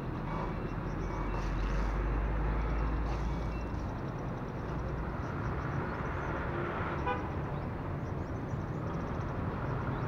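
Roadside traffic noise, with a vehicle rumbling past in the first half and a brief horn toot about seven seconds in. Short, faint, high chirps of small birds recur throughout.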